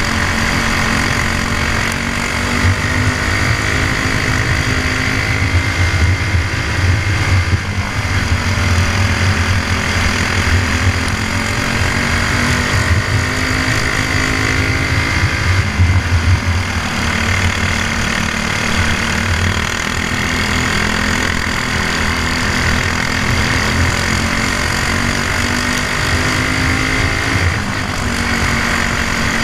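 Briggs & Stratton Animal four-stroke single-cylinder kart engine at racing revs, heard onboard. Its pitch drops off and climbs back up three times as the kart lifts for corners and accelerates out, over a steady rush of noise.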